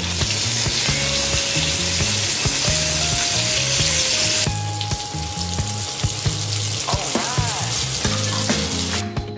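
Marinated chicken drumsticks sizzling as they pan-fry in a nonstick wok over low heat. The sizzle is loudest at first and eases a little about four and a half seconds in. Background music plays underneath.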